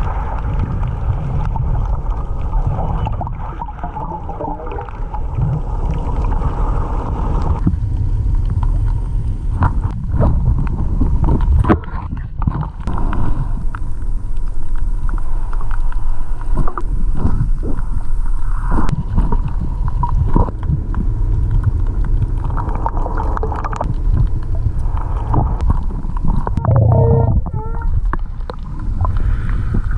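Underwater sound in rough surf: a steady low rumble of water surge with gurgling and frequent clicks and knocks, and a short warbling tone near the end.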